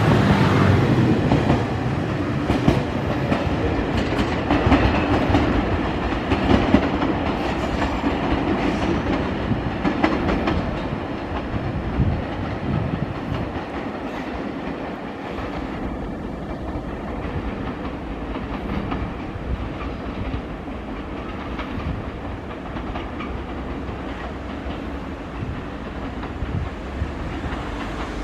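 Passenger trains running on the rails, wheels clacking over rail joints. The sound is loudest at first and grows quieter over the first dozen seconds, then carries on steadily.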